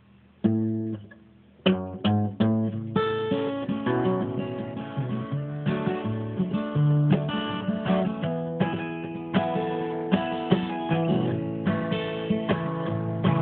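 Acoustic guitar strumming chords. A single chord rings about half a second in, then after a short gap the strumming starts up at about two seconds and keeps going steadily.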